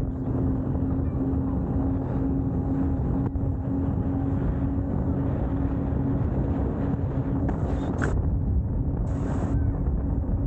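A steady low engine drone with a constant hum, mixed with wind rumbling on the microphone. Two brief hisses sound near the end.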